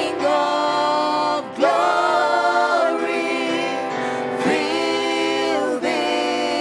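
Worship choir singing a slow gospel song in long held notes of about a second and a half each, gliding from one note to the next over a steady sustained backing.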